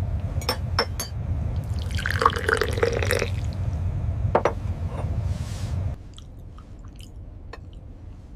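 Water splashing and dripping over a steady low rumble. About six seconds in it cuts off abruptly to a quieter hiss with a few scattered drips.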